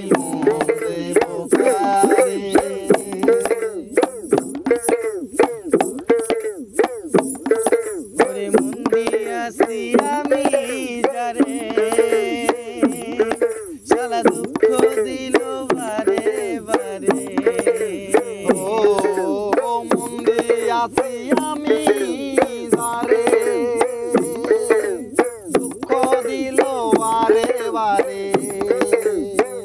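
Instrumental passage of a Bengali folk song: a continuous hand-drum beat under a melody line that keeps bending up and down in pitch, with no singing.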